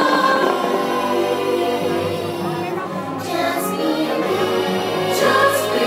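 Fireworks-show music with choir-like singing, played loud and steady, with a few faint sharp cracks from about three and a half seconds in.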